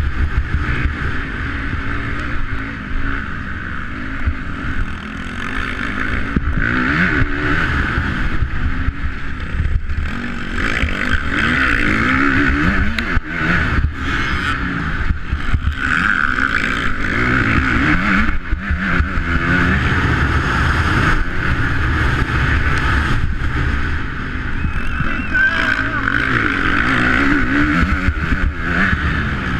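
Motocross bike engine revving up and down over and over as the rider accelerates and backs off around the track, with frequent knocks from the bike over rough ground.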